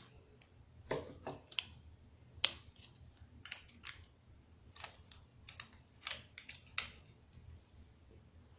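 Light, irregular clicking and tapping from a small packet of slime-kit 'magic' powder being tapped and shaken out into slime, the clicks coming in little clusters of two or three and stopping a little before the end.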